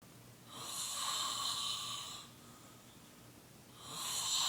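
A man snoring in his sleep: two long snores with a pause between, the second starting near the end.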